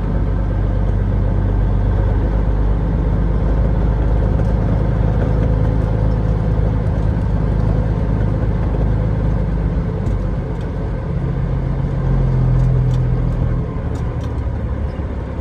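Semi truck's Cat 3406E straight-six diesel engine running under way at low speed on a dirt track, a steady drone. The engine note swells a little after ten seconds in, then eases off near the end.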